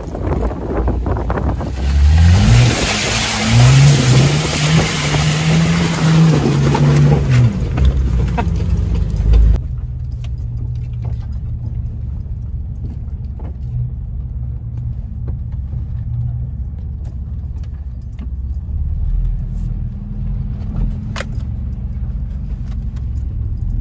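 Jeep Wrangler TJ engine revving hard, its pitch rising and falling, under a loud rushing spray of mud and water as the tires spin through a mud pit. The rush cuts off suddenly about ten seconds in, leaving the engine running low and steady on a rough trail with scattered small knocks and rattles.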